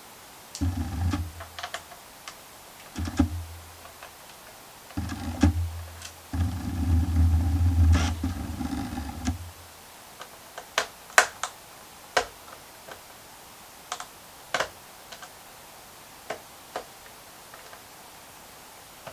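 Low rumbling handling noise in several stretches through the first half, the longest lasting about three seconds, followed by scattered sharp clicks and taps, as of hands working at a computer on a desk.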